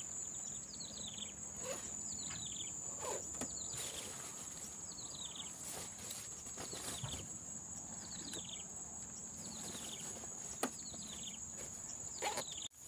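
Insects trilling steadily at a high pitch, with short falling calls repeating every second or two over the top. The sound drops out briefly just before the end.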